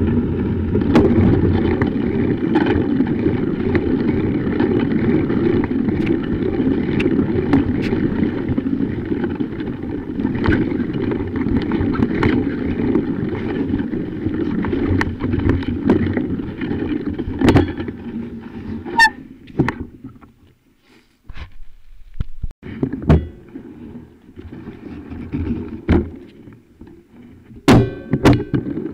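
Rumble of a bicycle rolling over snow, heard from a camera mounted on the front fork, with rattling clicks and knocks from the bike over bumps. Two-thirds of the way through the rumble drops away almost to nothing for a couple of seconds, then comes back weaker, broken by scattered knocks.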